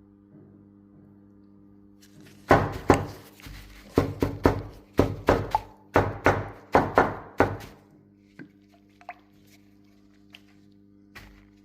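A series of about a dozen loud, sharp knocks, irregularly spaced over some five seconds, over a steady low hum; a few faint clicks follow.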